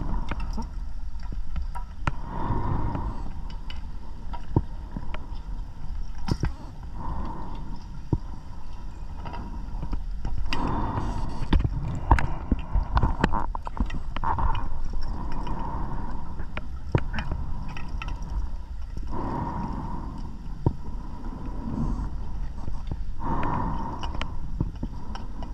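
Scuba diver breathing underwater, with exhaled bubbles gurgling in bursts every few seconds and a low rumble of water noise. Scattered light clicks are heard between breaths.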